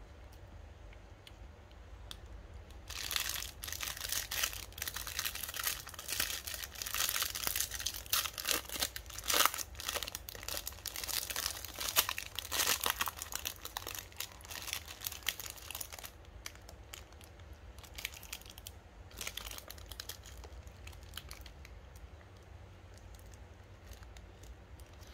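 Foil-lined snack bar wrapper being torn open and crinkled by hand. The crackling starts about three seconds in and is dense for some thirteen seconds, then thins out to scattered crinkles as the bar is pulled out.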